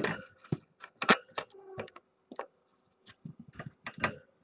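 Kittens jumping and pouncing around a cat tree and on the floor: a quick, irregular run of knocks, thumps and clicks from paws and claws, loudest right at the start and about a second in.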